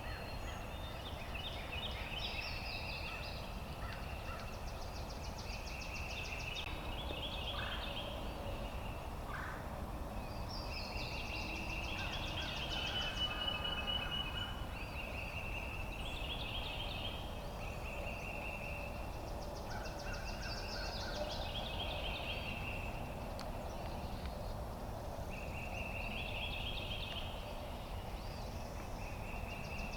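Wild turkey gobbling repeatedly, a call every few seconds, over a steady low wind rumble.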